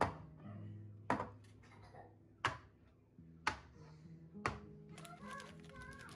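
Soft background music with a series of sharp knocks, five of them about a second apart, then a quick clatter of small clicks near the end.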